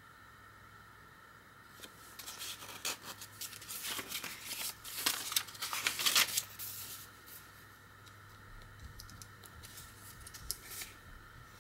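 Paper rustling and crinkling as the pages of a handmade journal of old ledger paper are turned by hand. It starts about two seconds in and is loudest around five to six seconds, as a translucent page is flipped, then goes on more softly as a photo in a paper pocket is handled.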